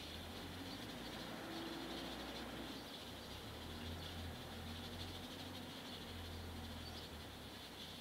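Faint outdoor ambience: a steady high-pitched chorus of insects, over a low rumble that comes and goes.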